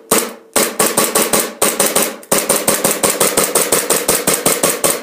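KWA TT-33 Tokarev gas blowback airsoft pistol firing in rapid semi-auto: a fast, even string of sharp shots, each with the slide cycling, about six a second.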